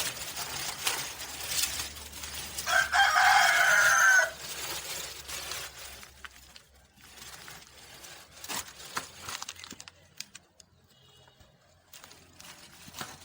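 A rooster crows once, about three seconds in, a single call lasting about a second and a half. Rustling comes before it and faint scattered clicks follow.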